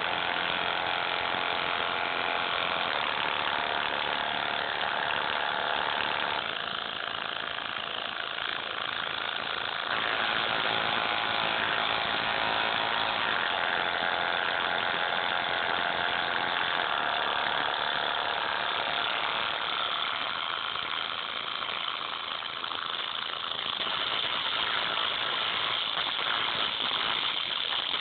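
A bare headphone driver playing a song, heavily distorted and thin, with almost no bass. The sound dips about six seconds in and comes back fuller at about ten seconds, following the sections of the song.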